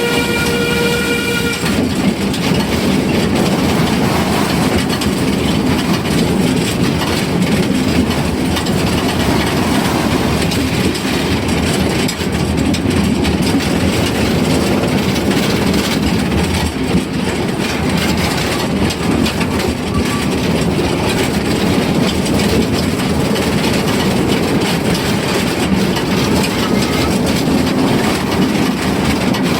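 Steady running noise of the Amemiya No. 21 forest-railway train, heard while riding aboard, with wheels rumbling and clattering on the narrow-gauge track. The steam locomotive's whistle is sounding at the start and cuts off about a second and a half in.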